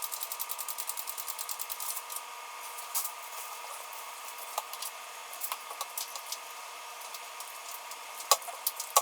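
Ratchet wrench clicking rapidly and evenly as a seat bolt is turned in, stopping about two seconds in. A few scattered light clicks follow.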